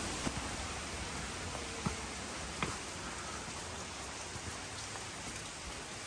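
Steady rushing hiss of a waterfall's falling water, with a few light taps in the first three seconds.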